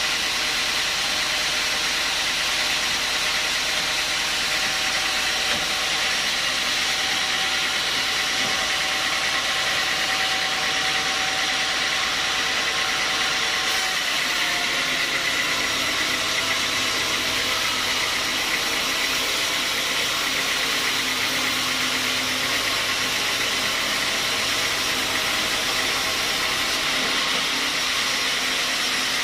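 A home-built horizontal band sawmill running steadily, its engine and blade making a dense, even noise. About halfway through the tone shifts as the blade cuts into the log.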